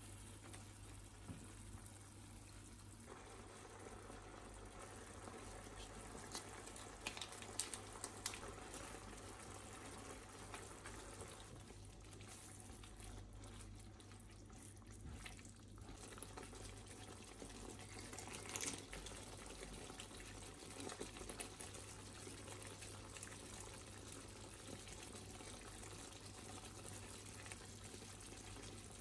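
Chicken and coconut-cream curry simmering in a pan, a faint steady bubbling of liquid, with a few light knocks of a spatula against the pan about seven seconds in and again near nineteen seconds.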